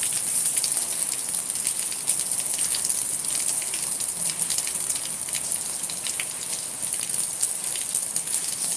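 Steady rain falling on hard rooftop surfaces: a dense hiss peppered with many small, sharp ticks of drops striking nearby.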